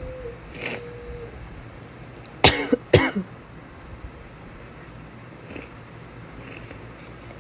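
Two stifled sneezes close together, about half a second apart, a little over two seconds in, part of an allergy sneezing fit that she puts down to dust; fainter breaths come before and after, over a steady low fan hum.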